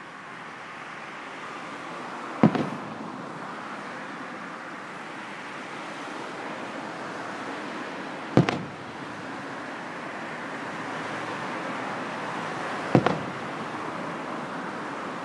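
Three distant aerial firework shells bursting, each a single sharp boom with a short echoing tail, about five seconds apart, over a steady rushing background noise.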